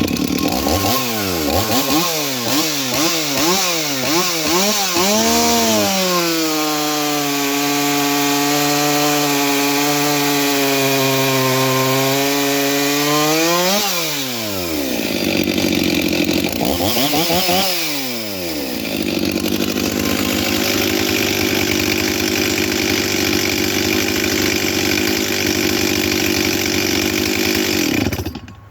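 Stihl 044 two-stroke chainsaw, all stock, revved in quick blips, then held at high revs before the throttle drops about fourteen seconds in. After a couple more revs it runs lower and rougher under load, cutting through oak, and stops near the end. The owner takes the saw's running to show a lean summer tune.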